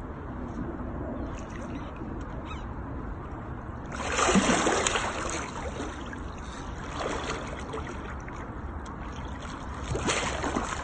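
A large hooked wels catfish thrashing at the surface beside an inflatable boat: a loud splash about four seconds in, lasting a second or so, then smaller splashes, the last near the end, over a steady low rumble.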